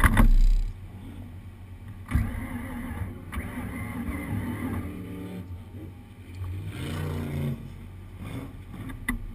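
Motor vehicle engine running and revving, its pitch shifting up and down, with a heavy low thump right at the start and a sharp knock about two seconds in.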